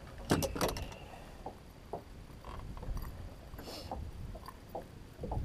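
Scattered knocks, clicks and rattles as a pike is handled and unhooked in a landing net against a boat's deck and gunwale, the loudest cluster about half a second in, over a low rumble of wind and water.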